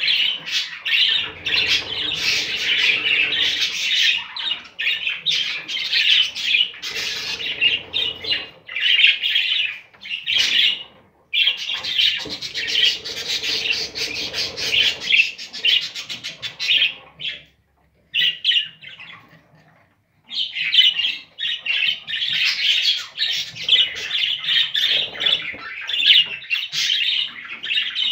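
Budgerigars chattering and squawking in a dense, rapid stream, with a short pause about ten seconds in and a longer one around eighteen seconds.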